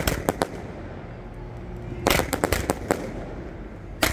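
1.4G close-proximity display fireworks firing: quick volleys of sharp shots, one cluster at the start, another about two seconds in and a fresh one right at the end, with steady noise between the volleys.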